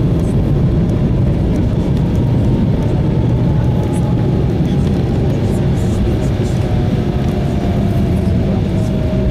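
Cabin noise aboard an Embraer 195 airliner rolling along the runway after touchdown: a steady, loud low rumble of the wheels and engines, with a faint whine that slowly falls in pitch as the engines wind down.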